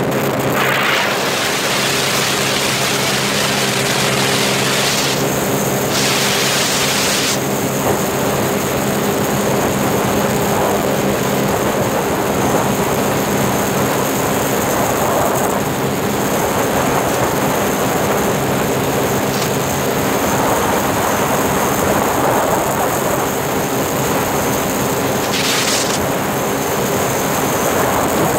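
Sea-Doo Spark's three-cylinder Rotax 900 HO ACE engine and jet pump running at a steady, unchanging pitch at racing speed, with wind on the microphone and rushing water.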